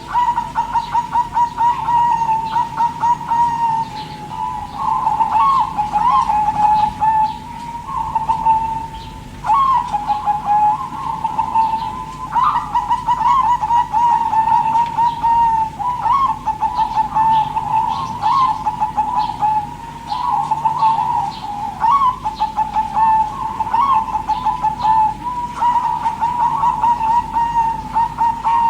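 Zebra dove (perkutut) cooing: quick trilled, staccato coos repeated phrase after phrase, with brief pauses between phrases.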